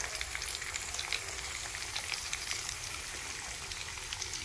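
Masala-coated fish pieces deep-frying in a kadai of hot oil over a low flame: a steady sizzle scattered with small crackles and pops.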